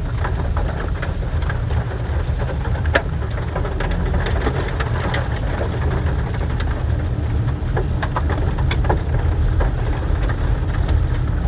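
Vehicle travelling along the road: a steady low rumble of engine and road noise, with scattered faint ticks.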